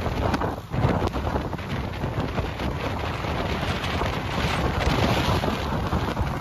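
Strong, gusting wind rushing over the microphone along with the rush of a moving vehicle, in the storm winds right beside a tornado.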